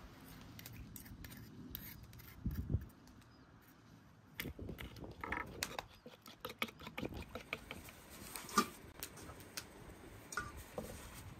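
Soft handling of dough with a dull knock, then a metal spoon beating egg yolks in a wooden bowl: a quick run of light clicks from the spoon against the bowl for several seconds in the middle.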